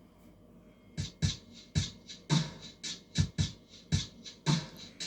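Sampled dance drum beat from a Roland M-DC1 Sound Expansion Dance module, starting about a second in: a rhythmic pattern of deep kick hits and bright snare and hi-hat strikes.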